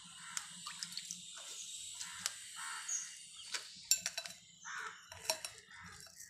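Spatula pressing and scraping pomegranate seeds against a metal mesh strainer, squishing out their juice: irregular wet scrapes with sharp clicks, the loudest just before four seconds in.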